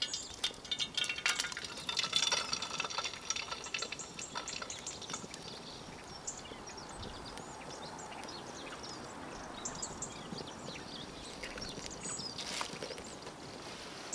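Egg going into a small frying pan of hot olive oil and frying: a busy crackling sizzle, loudest in the first few seconds, that settles into a quieter, steady sizzle.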